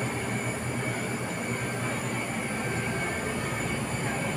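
Steady machine hum and hiss with a faint, constant high whine, unbroken throughout.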